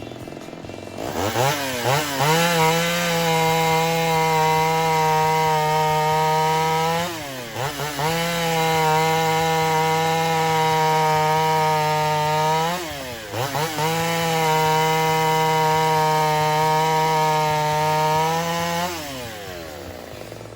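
Ported Homelite Super XL-130 two-stroke chainsaw revved to wide-open throttle three times, each time holding a steady high-pitched scream for several seconds before dropping back briefly, then falling away near the end. It is being run at full throttle to tune the high-speed mixture after a timing advance.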